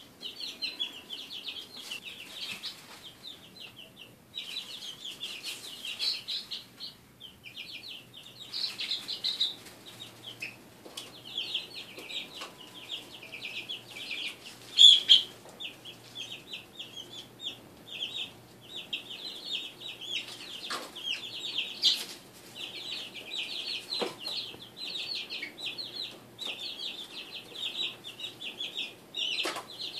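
A brood of three-week-old chicks peeping constantly, many rapid short calls overlapping, with a few brief lulls. Occasional sharp clicks sound among the calls, and one call about halfway through is louder than the rest.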